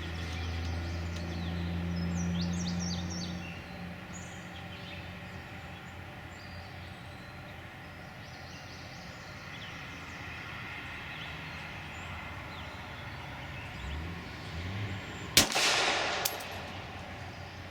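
A low steady hum fades out over the first few seconds, then a single 9mm Glock 26 pistol shot cracks out near the end, echoing, with a lighter crack just under a second after it.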